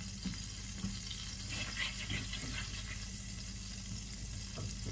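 Butter sizzling steadily in a stainless steel pan, stirred with a wooden spatula, with a few light scrapes about halfway through.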